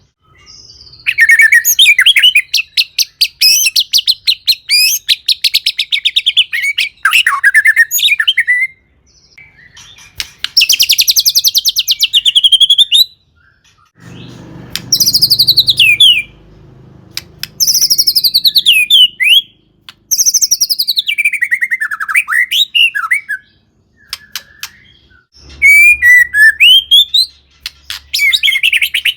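White-rumped shama singing loudly in a varied song. Bursts of rapid rattling notes alternate with clear whistles that slide downward, in phrases of a few seconds split by short pauses.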